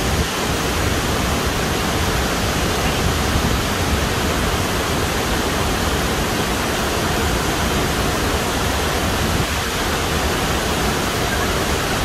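Burney Falls waterfall heard close to its base, where its spray reaches: a steady, loud, even rush of falling water.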